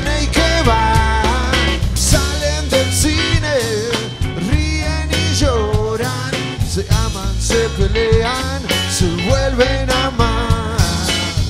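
Live blues-rock band playing an instrumental passage: acoustic guitars with a lead line of bent notes, over a drum kit played with rods.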